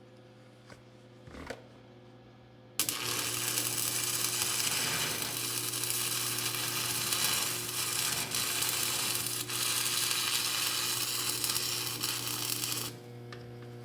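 Stick-welding arc crackling and sizzling in one continuous bead on a steel equipment frame. It starts suddenly about three seconds in and stops near the end. The welder is turned up high to burn out a keyhole. A steady low hum runs underneath.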